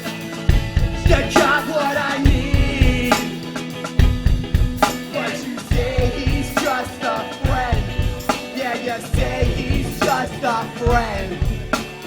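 A ska band playing live: a full band with a drum kit keeping a steady beat under a wavering lead melody line.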